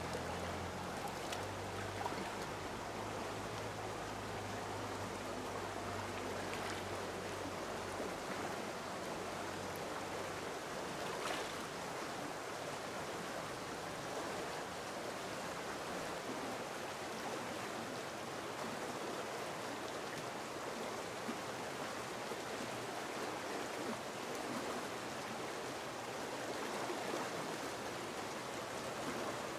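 Shallow mountain stream running over rocks: a steady rush of water, with a few light splashes from a person wading and working her hands in the water.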